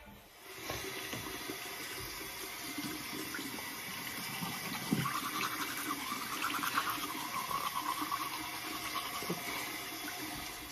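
Water running steadily in a bathroom, a rushing that starts about half a second in and goes on unbroken.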